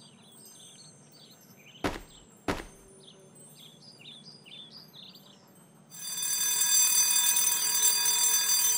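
Cartoon twin-bell alarm clock ringing loud and continuous, starting about six seconds in. Before it, two short thuds about half a second apart as party hats drop to the ground, over faint birdsong.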